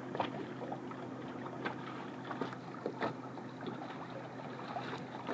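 A small motor on a fishing boat humming steadily, with a few light ticks and knocks scattered through it.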